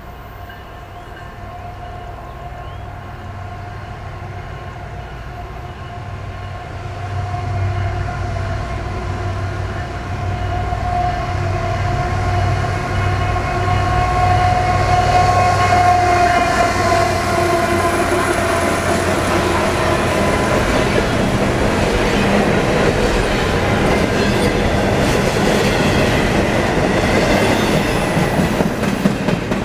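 CSX diesel freight locomotives running as the intermodal train approaches, with a low rumble and a steady whine that grow louder and drop slightly in pitch as the engines pass. After that comes the loud, steady clatter of double-stack container cars rolling by, their wheels clicking over the rail joints.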